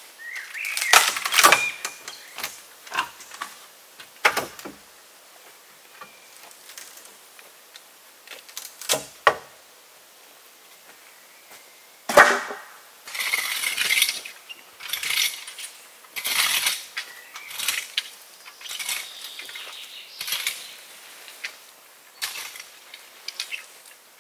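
Hand work on materials: irregular knocks and clinks, the loudest about twelve seconds in, then a busier stretch of scraping and rustling with more clinks.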